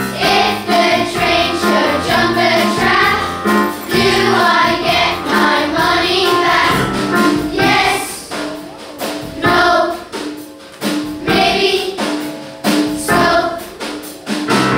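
Children's choir singing together, the phrases turning shorter and more clipped about halfway through.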